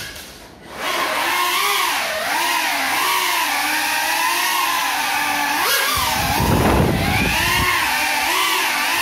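Small FPV quadcopter's electric motors and propellers whining, the pitch rising and falling constantly with the throttle, while flying on broken propellers. Near the start the sound drops away for under a second, then spins back up; around six to seven and a half seconds a rougher low rushing noise joins the whine.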